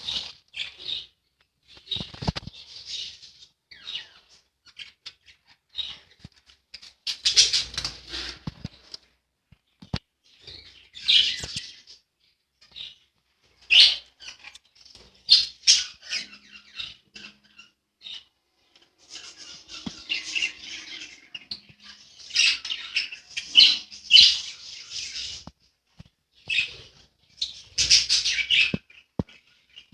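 Pet budgerigars chirping and chattering in short, irregular bursts, with a few sharp clicks between them.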